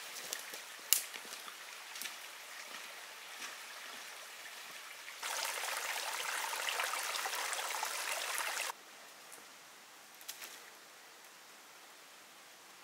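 Running water, with a sharp click about a second in; the water gets markedly louder for about three and a half seconds in the middle, starting and stopping abruptly.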